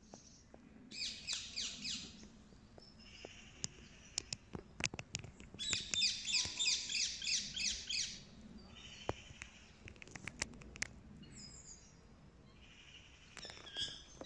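Small bird calling in rapid strings of quick, high chirps, once about a second in and again, louder, from about six to eight seconds, with a few sharp clicks scattered between.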